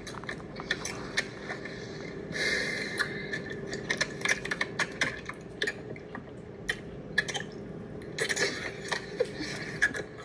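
Handling noise from a hand gripping and rubbing over a phone recording in a car: a run of irregular clicks and scrapes, with a brief rush of rubbing noise a few seconds in.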